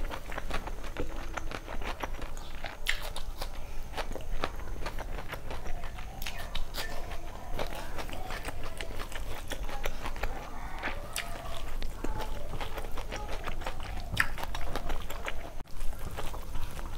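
Close-up mouth sounds of someone eating rice and curry by hand: wet chewing and lip smacking, a steady run of small clicks.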